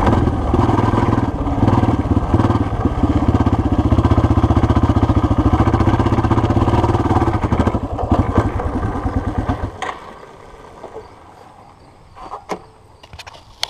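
Yamaha TT-R230 dirt bike's air-cooled single-cylinder four-stroke engine running under light throttle while riding over dirt and grass, then cut off abruptly about ten seconds in. A few faint clicks follow.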